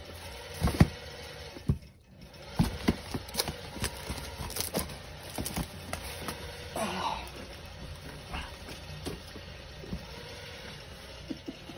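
A large cardboard shipping box being handled and closed: its flaps are folded down, with scattered knocks, bumps and cardboard rustling. The loudest knocks come in the first two seconds.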